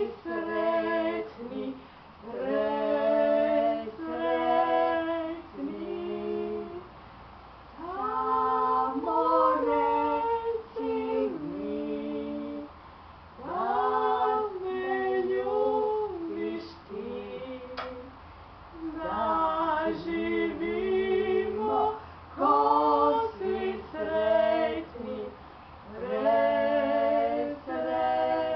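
Two women, one young and one elderly, singing a song together without accompaniment, in phrases of a few seconds with short breaths between them.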